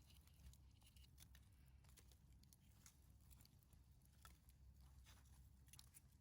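Near silence with faint, scattered crackles and pops from a small campfire burning, over a low steady hum.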